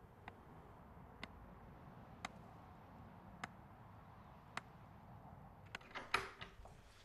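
Faint steady hiss with a sharp tick about once a second. Near the end comes a quick cluster of clicks and knocks as a wooden plank door's iron latch is worked and the door is opened.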